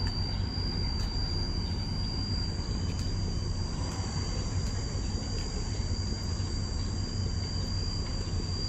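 Steady outdoor background noise: a constant low rumble with a thin, steady high-pitched whine over it.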